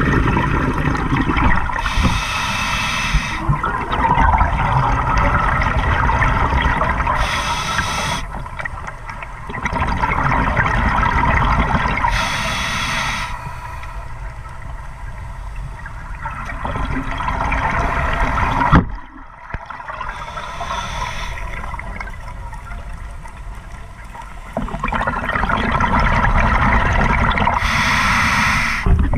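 Scuba diver breathing through a regulator underwater: several gurgling bursts of exhaled bubbles, about every five to eight seconds, with a steady rush of noise between.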